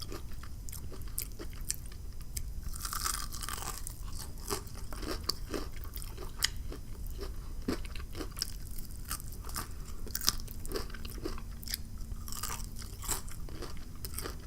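Close-miked chewing of a crispy fried chicken wing: a steady run of sharp crunches as the flour-battered ghost pepper crust breaks up in the mouth.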